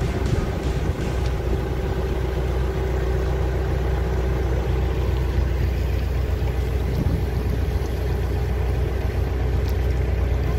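Narrowboat engine running steadily, a constant low hum heard from aboard the moving boat.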